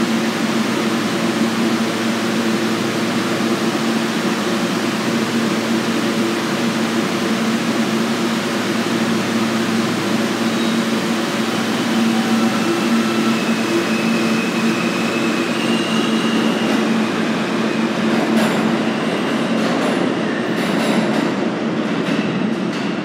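R160 subway train pulling out of the station and running past close by, a steady noise of wheels and motors. Brief high wheel squeals come partway through, and a string of clicks from the wheels over the rail joints near the end as the last cars pass.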